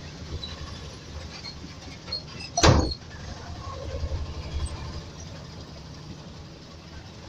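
Steady low rumble of a moving vehicle heard from inside it, with one loud, sharp knock or bang about two and a half seconds in.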